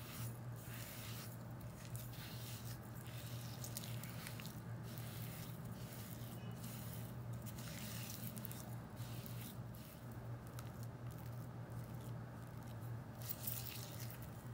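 Silicone spatula mashing and scraping thick yogurt with sugar against a glass bowl: repeated soft squishing and scraping strokes, about one or two a second.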